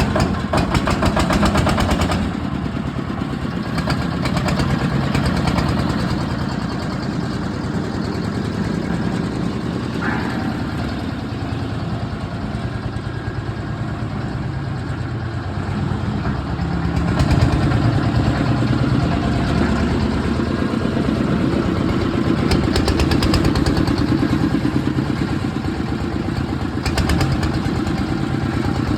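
Concrete mixer machine's engine running steadily with a fast, even beat, with extra clatter in the first two seconds.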